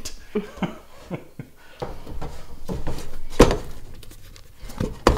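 Wooden spoon stirring and pressing stiff fufu dough in a metal pot, with irregular knocks and squelches, the loudest thud about three and a half seconds in.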